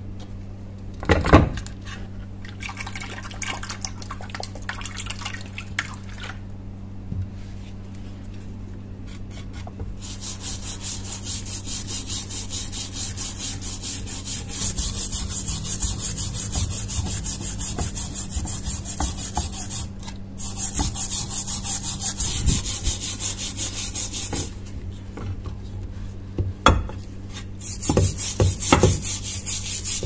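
Stiff brush scrubbing a rusty hatchet head in a shallow dish of liquid, a fast run of wet, rasping back-and-forth strokes. There is a sharp click about a second in.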